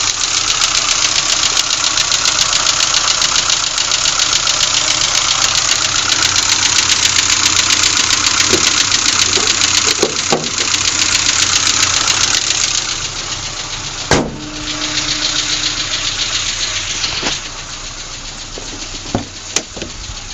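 Renault Clio Mk2's 1.2 litre 8-valve four-cylinder petrol engine running with a fast, even tappety ticking whose cause the owner can't explain, echoing in a confined space. About two-thirds of the way in the ticking stops and the sound drops, followed by a sharp knock.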